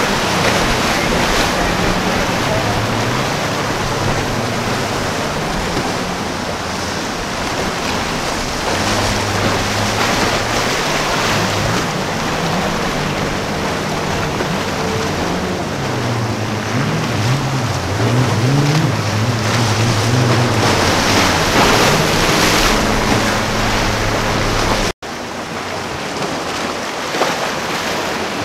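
Outboard engines of a center-console boat running through rough water, their pitch rising and falling with the throttle, over steady surf and wind buffeting the microphone. The sound drops out for an instant near the end.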